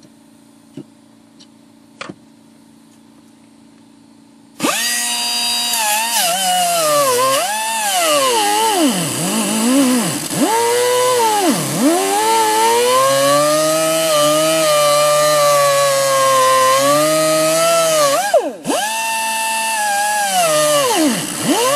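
A small electric grinder cutting into the minivan's sheet-metal floor pan to lengthen a seat-bolt hole. It starts suddenly after a few quiet seconds with light clicks, and its whine sags and recovers again and again as the bit bites into the metal. It stops briefly near the end and starts again.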